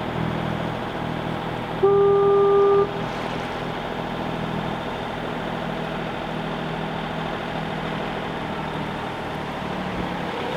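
A boat engine running steadily, with one horn blast of about a second, a deep foghorn-like tone, about two seconds in.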